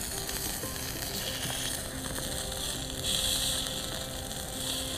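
Meat sizzling in oil on an electric barbecue hotplate, a steady fizzing hiss as the pieces are turned with a fork.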